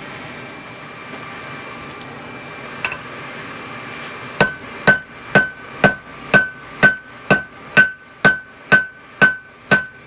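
Hand hammer forging hot steel on an anvil: a steady rhythm of about two blows a second begins a little over four seconds in, each blow a sharp strike with a short metallic ring. Before the hammering there is a steady hiss with one light click.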